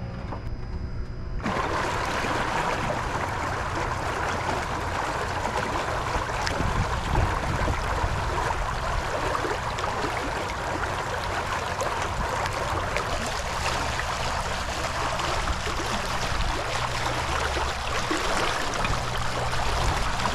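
Pond water churning and splashing at the surface, driven up by a 3/4 HP Kasco de-icer's propeller angled upward to agitate the surface. It is a steady rushing, bubbling noise that starts abruptly about a second and a half in.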